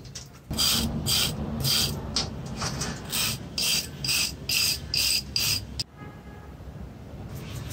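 Repeated rasping strokes, about two a second, which stop abruptly a little under six seconds in.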